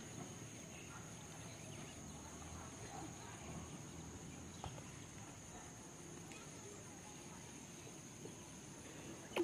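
Faint steady high-pitched insect trill with a low background hiss, and a few soft clicks and rustles from a nylon fishing net being handled.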